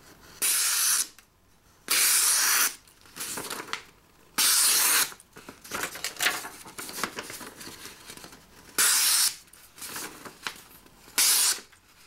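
Shieldon Boa folding knife's D2 steel blade slicing through a sheet of paper: five clean hissing cuts, each under a second long, with softer paper rustling between them. The edge is fresh out of the box and very sharp.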